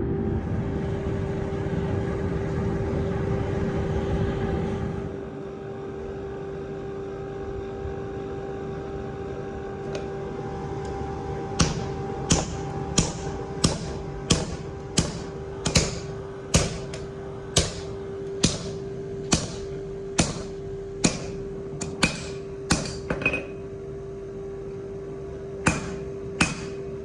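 Hammer striking hot steel on an anvil in a slow, even rhythm of a little under one blow a second, starting about halfway through, over a steady machine hum. A louder rushing noise stops about five seconds in.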